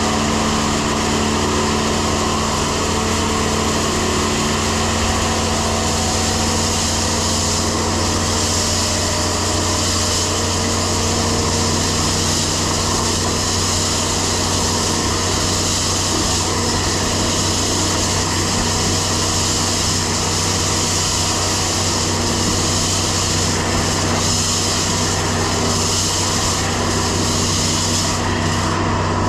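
Grain vac running steadily: a loud, constant machine drone with a broad hiss over it, the top of the hiss dropping away near the end.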